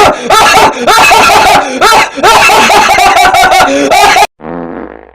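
Loud laughter in quick repeated bursts that cuts off abruptly about four seconds in, followed by a brief quieter sound.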